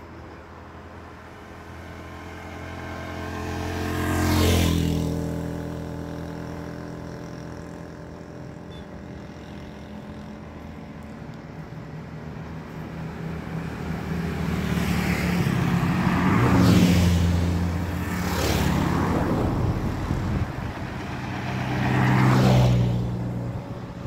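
Road vehicles passing by one after another, each one's engine hum and tyre noise swelling and fading: one a few seconds in, two in quick succession past the middle, and one more near the end.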